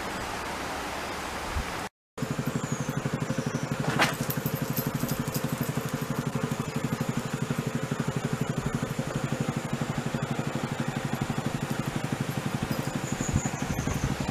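Steady outdoor hiss, then after a brief dropout an engine running with a rapid, even pulse, and one sharp click about four seconds in.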